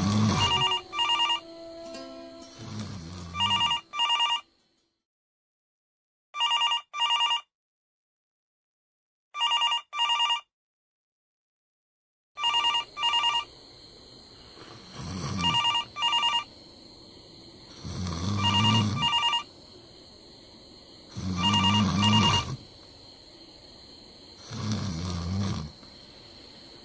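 Telephone ringing in the double-ring pattern, 'ring-ring', repeated about every three seconds, about nine times. From about the middle on, a low sound of about a second comes between the rings at the same pace.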